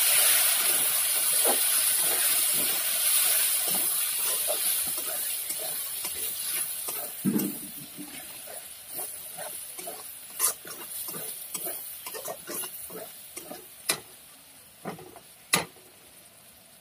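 Onions, tomatoes and ground spices frying in oil in a steel kadai: a sizzle that dies down gradually, with scattered scrapes and taps of a metal spatula on the pan.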